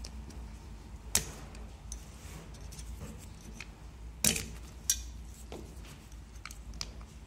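Scattered sharp metallic clicks and taps of small hand tools working the handguard clamp bolt and lever of an AR-15-type carbine, the loudest about a second in and about four seconds in, over a faint low hum.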